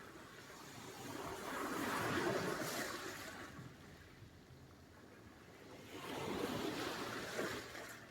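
Sea surf: waves washing in, two surges of rushing water that swell and die away about four seconds apart.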